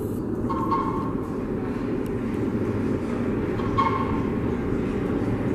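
Subway train approaching through the tunnel, a steady low rumble with two brief squeals, about a second in and about four seconds in.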